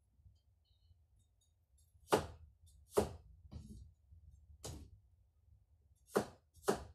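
A series of about six sharp knocks or taps, irregularly spaced, each short and clipped.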